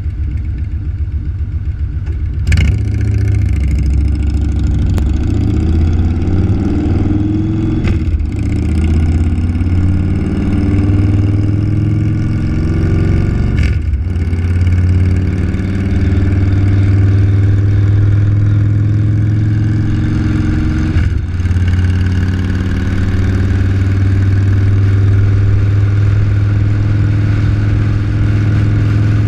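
Vehicle engine pulling away from a stop and accelerating up through the gears. Its pitch climbs and drops back with a short clunk at each upshift, four times about every five to seven seconds, then settles into steady cruising.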